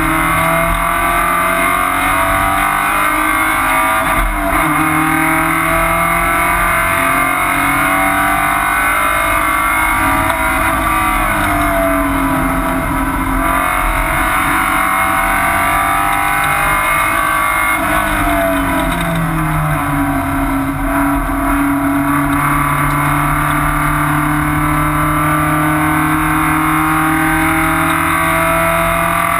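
Porsche 944 race car's 2.5-litre four-cylinder engine running hard, heard from inside the stripped, caged cabin. Its pitch rises and falls with the throttle and gear changes, with a sharp dip about four seconds in and another drop around eighteen seconds in, then a steady climb near the end.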